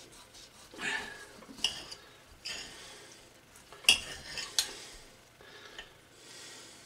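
Steel knife and fork cutting a baked pork shoulder steak on a ceramic plate: the blade sawing through the meat and scraping and clinking against the plate in short strokes about a second apart, the sharpest clink about four seconds in.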